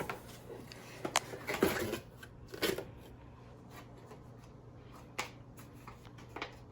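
A gift box and its packaging being opened by hand: paper-and-cardboard rustling with scattered short clicks and taps.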